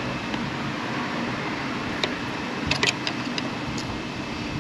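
A few light clicks and taps of a screwdriver working at a hood gas-strut mount, over a steady mechanical hum.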